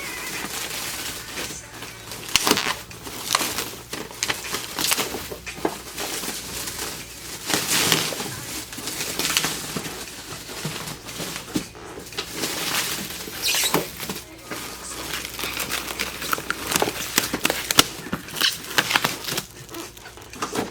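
Cardboard box and packing material rustling and crinkling as a box is unpacked, with irregular scrapes and light knocks.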